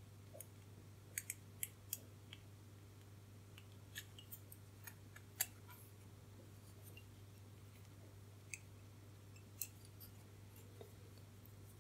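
Faint, scattered small clicks and ticks of a circuit board and the wire leads of resistors being handled as the resistors are fitted through the board, over a low steady hum.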